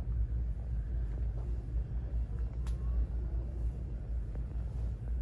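Steady low rumble of store background noise on a handheld camera's microphone, with one sharp click a little past halfway.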